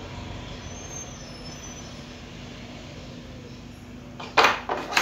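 Steady workshop background noise with a faint hum, then three loud clatters close together near the end as metal hand tools are handled on the wooden workbench board.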